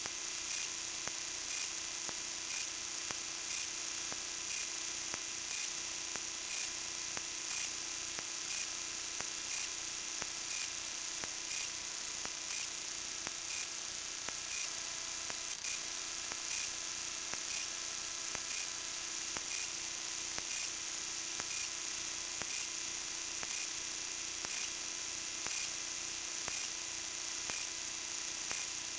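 Steady electrical hum with a high hiss and faint regular ticking, the self-noise of a kite-borne camera picked up by its own microphone.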